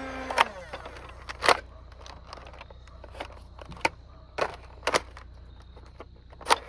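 A Nerf blaster's motor whine winds down right at the start. Then come about eight sharp, irregular clicks and knocks, the loudest about a second and a half in.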